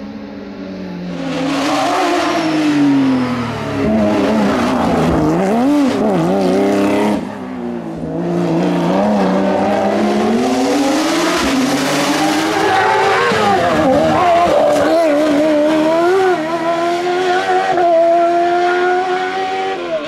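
Race car engine running hard, its pitch climbing and dropping repeatedly as it accelerates, changes gear and lifts off, with a short lull about seven seconds in.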